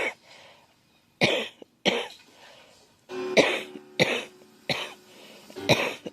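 A girl coughing repeatedly: about seven short, sharp coughs, roughly a second apart, with one longer cough about three seconds in.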